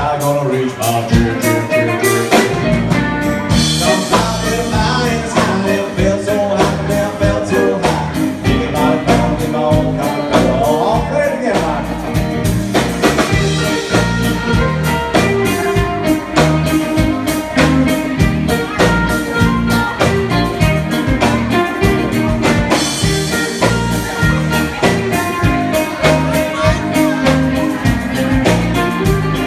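Live band playing an upbeat song, with electric guitars, a steady drum beat and singing.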